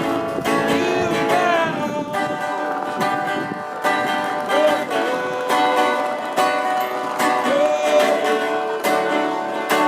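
Street busker's acoustic music: plucked strings played in a steady stream, with a sung melody line holding and sliding between notes over it.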